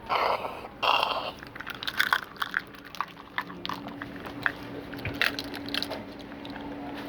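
Crinkling and clicking handling noises, with two loud crackly rustles in the first second and scattered clicks after them; a steady low hum starts about halfway through.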